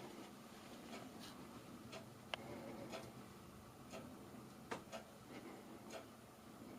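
Faint, regular ticking at about one tick a second, with a couple of sharper clicks in between.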